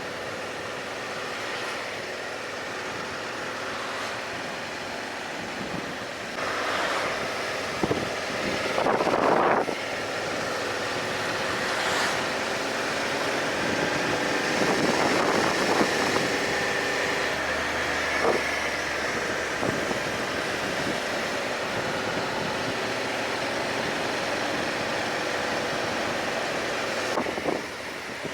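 Motorcycle riding: a steady run of engine and road noise, with wind on the microphone. Louder swells come and go along the way.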